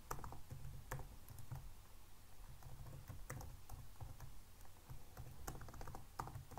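Typing on a computer keyboard: scattered key clicks in short irregular runs, with brief pauses between them.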